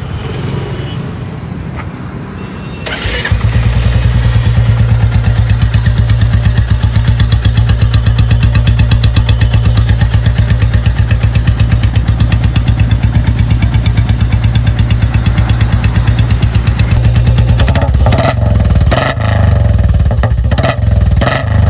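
Royal Enfield Bullet 350 Standard (BS6, J-series single-cylinder engine) with a free-flow exhaust and short bottle silencer, catching about three seconds in and then idling with a loud, even thump. Near the end the throttle is blipped a few times.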